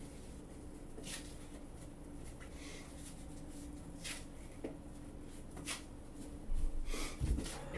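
A man sniffing quietly every second or so while a sneeze is stuck, with a louder, deeper sound near the end; no sneeze comes out.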